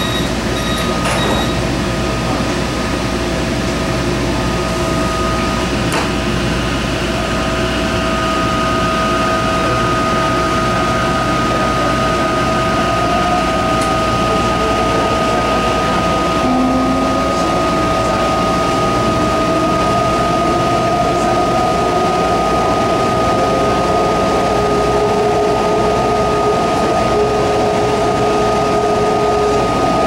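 Interior of a Kawasaki metro train pulling away and accelerating: the Mitsubishi Electric SiC VVVF traction inverter and motors whine, the tones rising in pitch as speed builds, over a steady hum and running noise. A short series of high beeps, the door-closing warning, ends in the first second or two.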